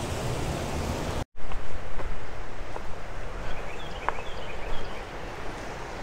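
Water rushing over a low dam spillway, cut off abruptly about a second in; then a quieter, steady rush of flowing creek water, with a few short high bird chirps and a few light knocks.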